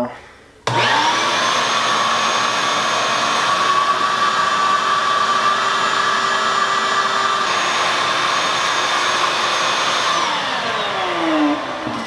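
A 5-horsepower shop vac switches on about half a second in and runs with a steady whine while sucking standing water and debris out of an HVAC unit's condensate drain pan. Near the end it is switched off and the motor's whine falls in pitch as it winds down.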